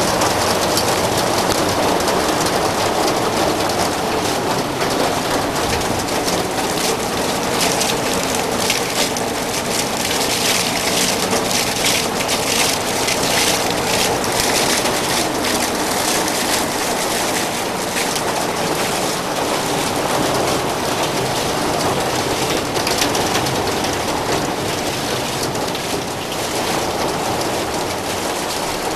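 Heavy downpour: rain coming down hard and steady as a dense hiss. Through the middle stretch there are many close, sharp drop impacts.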